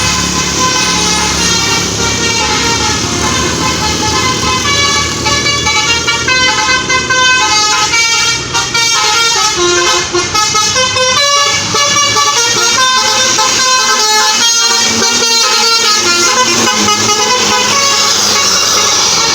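A tour bus's 'basuri' telolet horn playing a fast tune of many short notes that jump up and down in pitch, over the bus's running engine.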